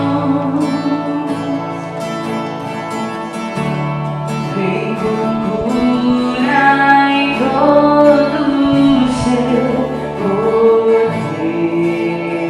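A Christian worship band playing a song live, with singing over acoustic guitar, bass, electric guitar and keyboard.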